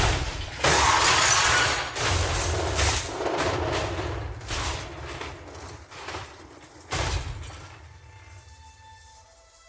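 Movie sound effects of a race car crashing and tumbling: a fast run of crunching, banging impacts, with heavy hits about half a second in and again about seven seconds in. The crash dies away, and soft sustained music tones come in near the end.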